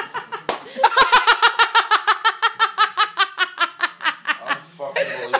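A single sharp smack about half a second in, a cold pizza slapped against a face, followed by loud, helpless laughter in fast ha-ha pulses about six a second that runs on for several seconds.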